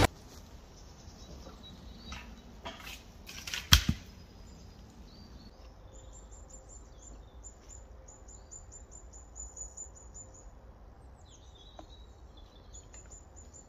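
A few rustles and knocks of wood, the loudest a sharp wooden knock a little under four seconds in. Then a small songbird sings quick runs of high, thin repeated notes, twice.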